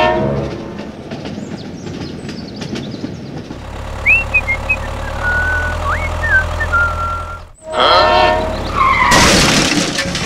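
Dubbed-in sound effects for toy vehicles. A train horn toots at the start and again about eight seconds in. Between the toots a tractor engine runs with short whistling chirps over it, and a crash follows near the end.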